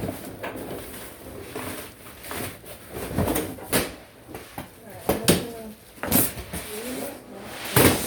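Cardboard box and packaging being handled and pulled apart: an irregular series of sharp knocks and bumps with rustling in between.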